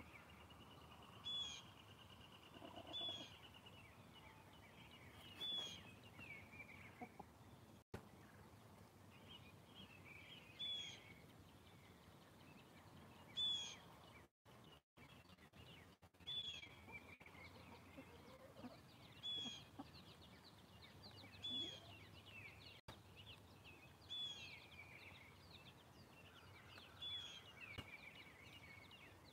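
Faint outdoor ambience with short, high bird calls repeating every two to three seconds. A steady high trill runs through the first few seconds, all over a low background hiss.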